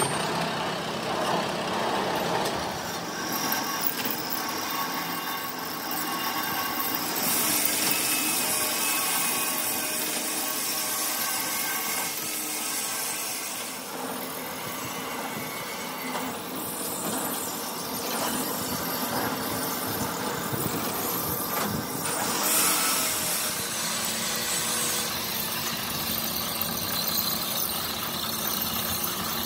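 Crankshaft machining equipment running: steady mechanical noise with high, thin squealing tones, shifting in character several times.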